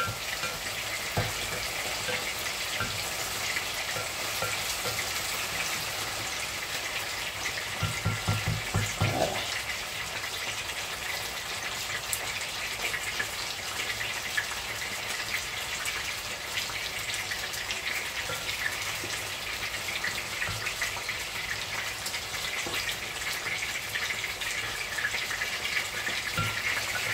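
Chopped okra, tomato and green pepper sizzling steadily in a pot on the stove, a fine continuous crackle.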